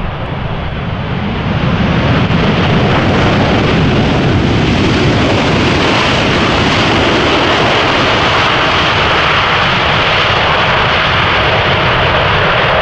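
Boeing 747's four turbofan engines at takeoff thrust: a loud, steady jet noise that swells over the first two seconds and then holds.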